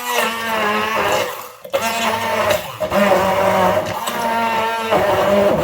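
Electric blender running, its motor pitch wavering up and down as the load shifts, with brief dips about one and a half and two and a half seconds in.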